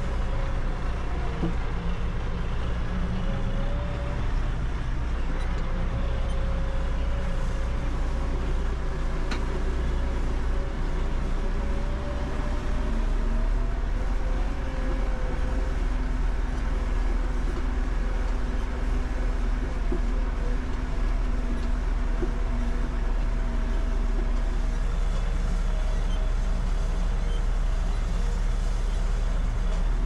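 New Holland 4030 tractor's diesel engine running steadily under load, heard from inside the cab, while it pulls a wheel hay rake through cut hay.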